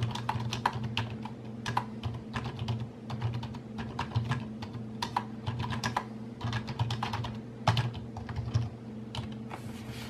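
Typing on a Logitech K400 Plus wireless keyboard with nearly flat keycaps: a quick, irregular run of light key clicks over a steady low hum.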